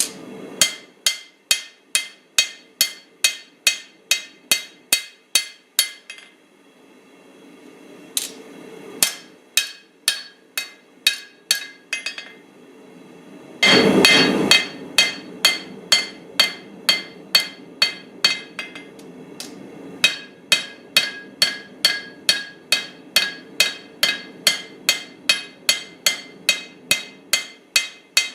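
Hammer blows ringing on an anvil while forging a small steel cleaver, in runs of about two to three strikes a second with two short pauses. A loud, rushing burst about a second long comes near the middle, and a steady low hum runs underneath.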